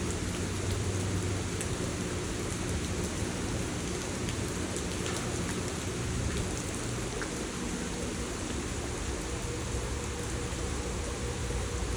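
Heavy rain falling steadily, with a few sharper drop hits here and there.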